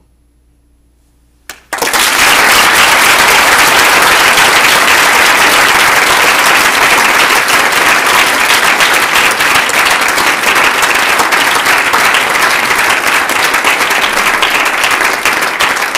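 Audience applauding: after a second or so of quiet, loud, dense clapping breaks out about two seconds in and keeps going steadily.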